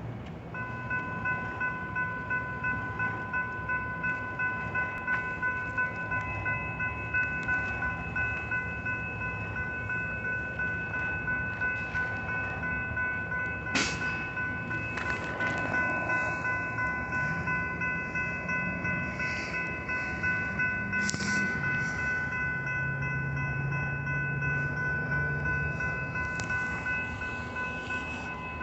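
Railroad grade-crossing warning bell starting up about half a second in and then ringing steadily, a repeating ding about twice a second, as the crossing activates for an approaching train. A sharp clank comes about fourteen seconds in, as the gate arms are lowering.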